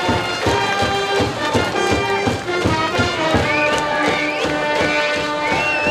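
High school brass band playing a baseball cheer song with a steady drum beat. High sliding notes come in during the second half.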